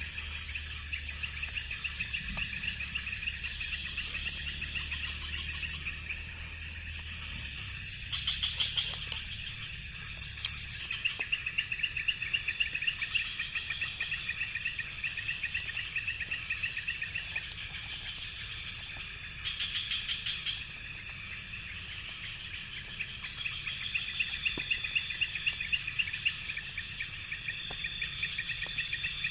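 Night insect chorus in the forest after rain: a steady high-pitched buzzing, with rapid pulsed chirping trills that come and go in several spells.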